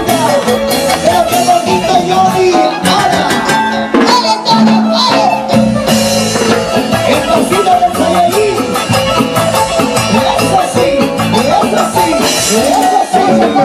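Live band music playing loudly through stage speakers, with a steady dance beat and singing.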